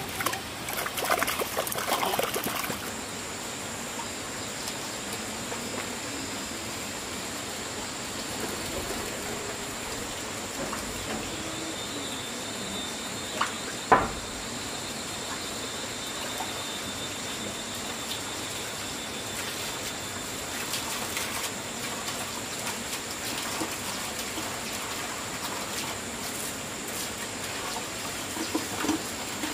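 Water trickling, with busier sloshing for the first couple of seconds and one sharp knock about halfway through.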